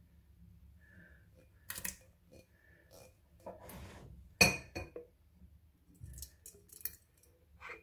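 Glass jars clinking and knocking against kitchenware as lingonberry jam is filled into them: a few separate sharp clinks, the loudest about four and a half seconds in.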